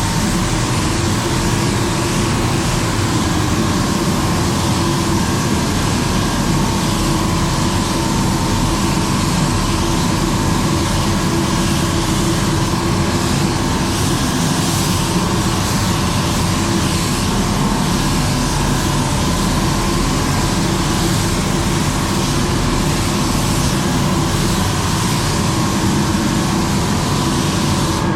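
Steady rushing air with a constant hum, from paint-booth extraction fans running during spraying.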